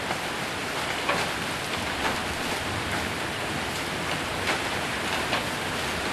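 Hail and heavy rain falling on a roof: a steady dense patter with a few sharper single strikes standing out.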